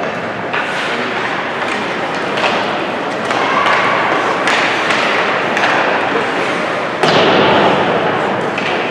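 Ice hockey game in an arena: a steady wash of skating and arena noise broken by several sharp knocks and thuds, with a louder stretch of noise starting suddenly about seven seconds in.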